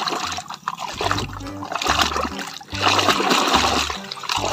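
Muddy water splashing and sloshing as a toy car is swished back and forth by hand to wash off the mud, in uneven surges.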